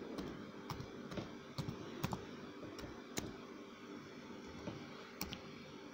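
Computer keyboard keys clicking as a word is typed: about a dozen light keystrokes at uneven spacing, with short pauses between them.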